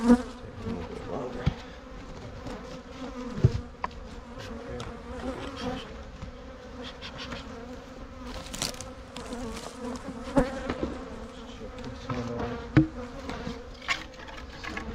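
Honeybees buzzing in a steady hum, with a few sharp knocks scattered through.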